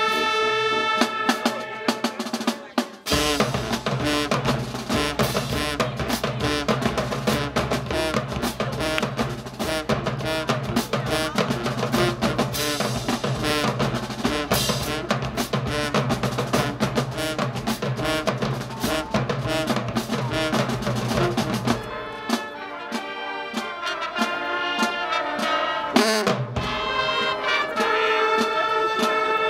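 Middle school marching band playing: a held brass chord, then about twenty seconds of heavy drumming on bass drums and snares with the band under it, and the brass taking the lead again near the end.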